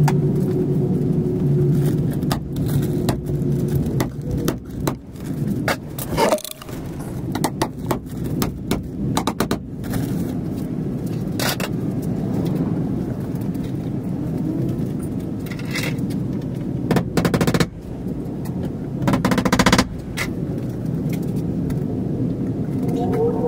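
Workshop handling noise: scattered sharp knocks and clicks and some scraping over a steady background hum. A humming tone in the first few seconds stops about four seconds in.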